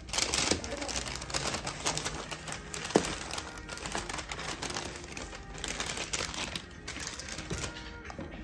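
Brown kraft paper bag being opened and folded by hand, the paper crinkling and rustling, with one sharp click about three seconds in.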